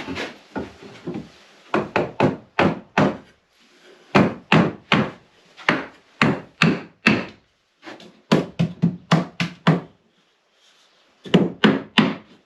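Mallet blows on wood, struck in quick runs of four to seven hits with short pauses between runs.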